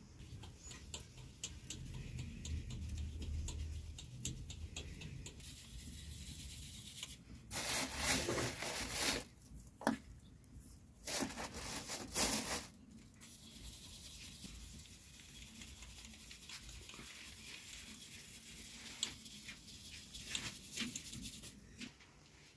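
Flour being shaken through a round metal sieve and scooped from a plastic bag: two bursts of rustling and pattering in the middle, with scattered soft clicks around them.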